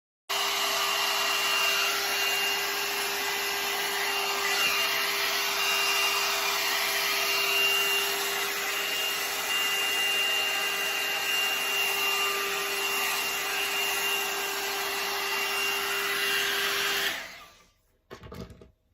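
Hot air dryer brush running, a steady rush of blown air over a constant motor whine, switched off near the end. A brief faint sound follows about a second later.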